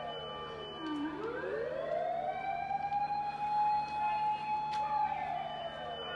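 Fire engine sirens wailing, two overlapping. The tone sinks to a low point about a second in, climbs back over a couple of seconds, holds high, then starts to fall again near the end.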